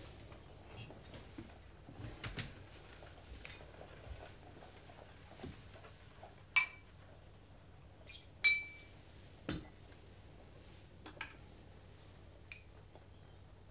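Glassware clinking and knocking: scattered light clicks, then two sharp clinks about six and a half and eight and a half seconds in, each ringing briefly, followed by a duller knock.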